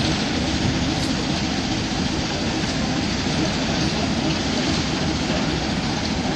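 Class 08 diesel shunter's English Electric six-cylinder diesel engine running with a steady rumble.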